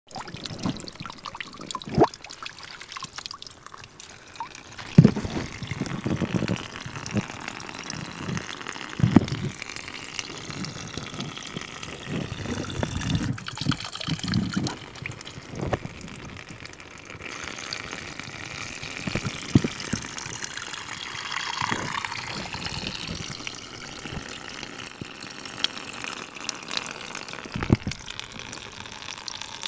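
Water trickling steadily in a small pond, with a few short low thumps scattered through, the loudest about 5 and 9 seconds in.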